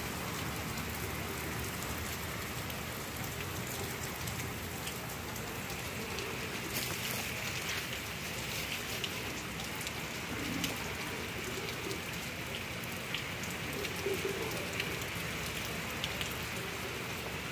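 Steady rain falling on waterlogged, muddy ground, with a few sharper drop ticks scattered through it.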